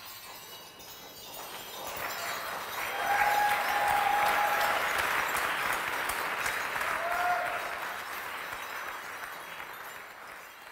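Audience applauding at the end of a percussion piece. The clapping swells about a second and a half in, holds, then fades away, with a couple of high held cheers over it.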